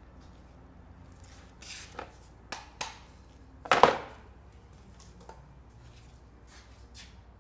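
A handful of short knocks and clinks of hand tools and exhaust hardware being handled during a motorcycle slip-on muffler install, the loudest about four seconds in.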